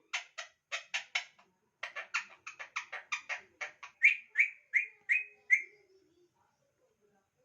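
Alexandrine parakeet giving a rapid run of short, harsh chattering calls, about three or four a second, then five louder, clearer chirps that dip slightly in pitch.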